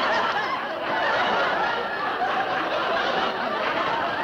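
Audience laughter from many people, one long unbroken laugh.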